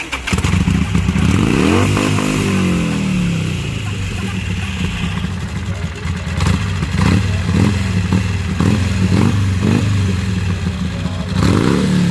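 Motorcycle engine starting abruptly and revving up in the first few seconds, then running steadily, with another rev near the end.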